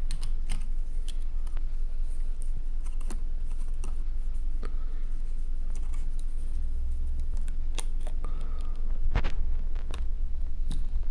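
Light handling noise of a laptop CPU being picked up: scattered small clicks and taps over a steady low hum, with a sharper click about nine seconds in.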